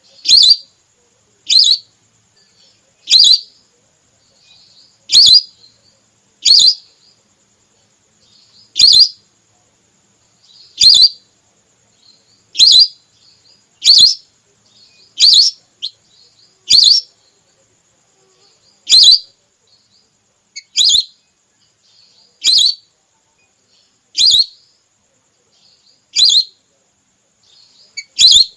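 Whistling duck (belibis) female call used as a hunting lure: a short, sharp whistled call repeated about every one and a half to two seconds.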